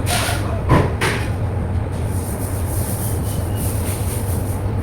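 Wet vacuum cleaner running steadily with a low hum, with two short louder noises in the first second.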